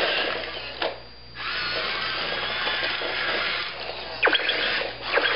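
Small electric drive motor and gears of a remote-control Buzz Lightyear toy whirring as it drives, stopping briefly about a second in, then running steadily again. A couple of short, sharp squeaks come near the end.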